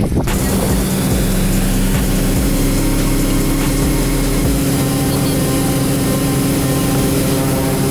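Wake boat's engine droning steadily under way, over the rush of water and wind. A deep low rumble underneath drops away about halfway through.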